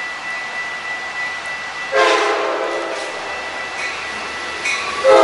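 Amtrak F59PHI diesel locomotive's air horn sounding a blast about two seconds in that fades over about a second, with a second, louder blast starting at the very end as the train comes into the station. A steady high tone runs underneath.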